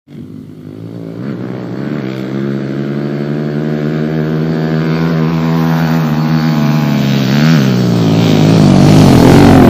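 Pit bike engines, one a Kawasaki KLX110, running under throttle as the bikes approach, growing steadily from faint to loud. The engine pitch wavers with the throttle, dipping and climbing back about seven and a half seconds in.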